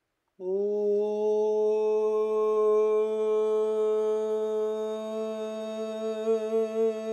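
A man's voice holding one long, steady open-mouthed tone, a vocal toning sound made for healing and release. It starts about half a second in and wavers slightly near the end.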